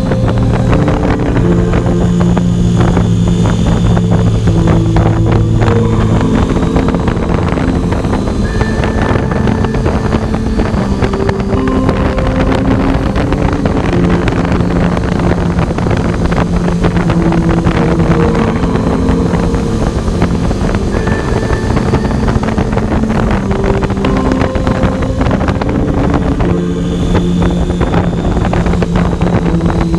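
KTM 890 Adventure's parallel-twin engine running under way, its pitch holding steady for stretches and stepping up or down now and then, under loud wind noise on the microphone.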